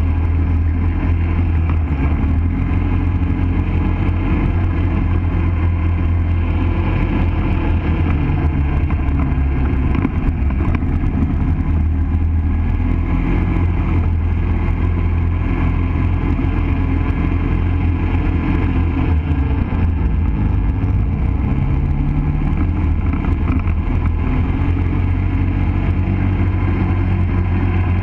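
ATV engine running under way, heard from on board the machine: a steady low drone whose pitch rises and falls several times as the throttle changes.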